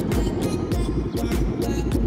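Background music with a steady, fast beat of about three to four drum hits a second over heavy bass.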